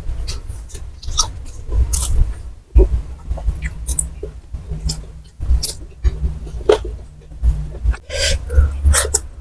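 A person chewing and eating fried snacks close to the microphone: irregular crisp crunches and wet mouth clicks, several a second with short gaps.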